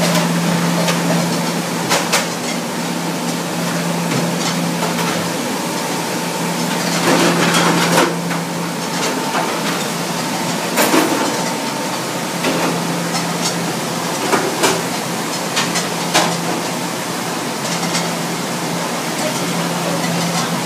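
Commercial conveyor dishwasher and the heated air curtain mounted over its exit running with a steady machine noise and hum, with occasional sharp clatters of plates and racks.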